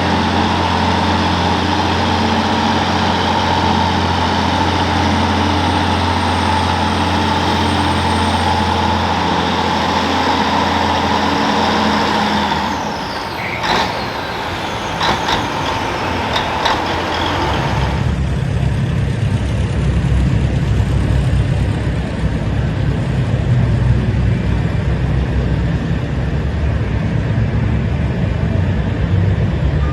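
Big Bud farm tractor's diesel engine running hard while pulling the sled, steady at first. About halfway through come a few knocks, then a deeper, rougher engine rumble.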